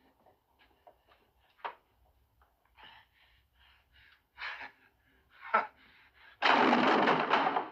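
A man's short, quiet gasping breaths, then a sudden loud, harsh vocal outburst starting about six and a half seconds in.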